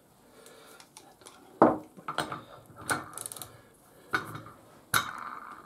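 Metal tool clicks and clinks against a barber chair's hydraulic pump as an Allen bolt is worked loose: about five separate sharp knocks, with a short run of fine ticks about three seconds in.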